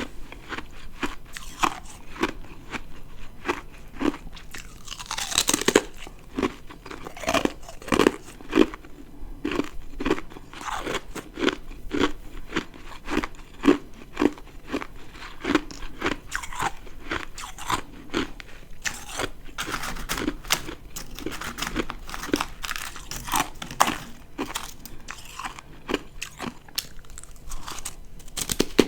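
Ice being bitten and chewed close to the microphone: crisp crunches repeating at a steady chewing rhythm.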